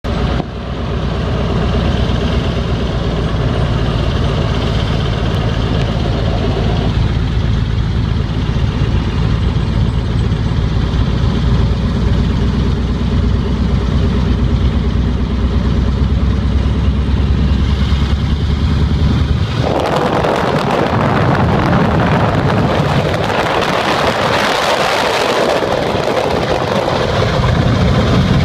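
A 1942 Waco biplane's radial engine runs with a steady low hum. About two-thirds of the way in, the sound changes suddenly to a harsher rushing noise as the plane speeds down the runway on its take-off roll.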